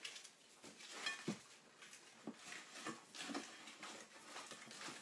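A glass tart dish being greased by hand with a block of butter: faint, irregular rubbing strokes on the glass, with a soft knock just over a second in.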